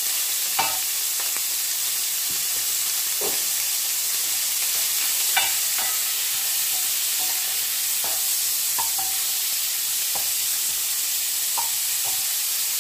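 Diced pancetta sizzling in olive oil in a hot non-stick pan, a steady hiss, while a wooden spoon stirs it and now and then scrapes and knocks against the pan.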